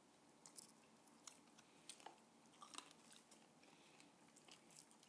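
Faint chewing and crunching of salted egg chicken wings, with scattered small clicks a few times a second.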